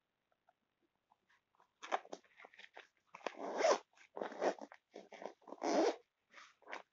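Zipper on a fabric backpack pulled in a series of about six short rasping strokes, starting about two seconds in.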